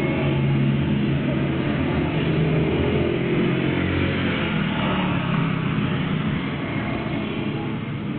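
Small motor scooter engine running as it passes and pulls away, its sound fading over the last few seconds, heard through a CCTV camera's microphone.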